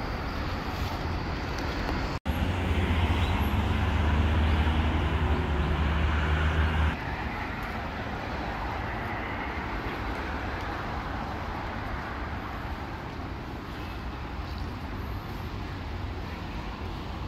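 Street traffic noise. About two seconds in, a louder low engine hum runs for about five seconds and then cuts off suddenly, leaving a steadier, quieter traffic background.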